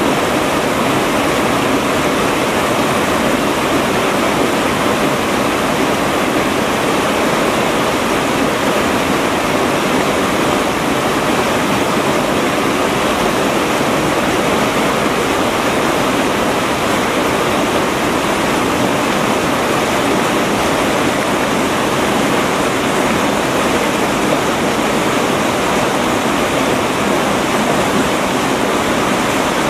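River rapids rushing steadily over rocks and boulders: a loud, even sound of white water.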